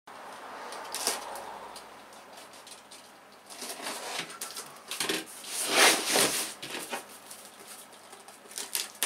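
Cardboard box being handled and shifted on a table: irregular rustles and knocks, with one louder scraping rustle about six seconds in.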